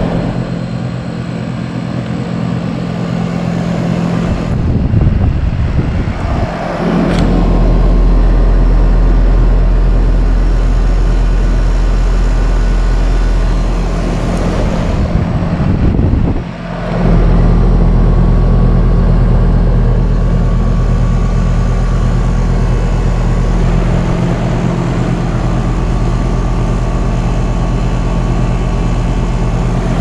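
A 2019 OxBox 14 SEER 3-ton straight-cool central air conditioner running: its scroll compressor hums steadily under the whoosh of the condenser fan.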